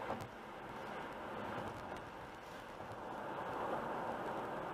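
Steady road and tyre noise of a car cruising at about 96 km/h on a motorway, heard from inside the cabin.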